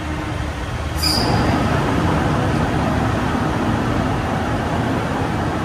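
Rumble of a driverless people-mover train heard from inside the car as it runs along its track, with a sharp click about a second in, after which the running noise gets louder.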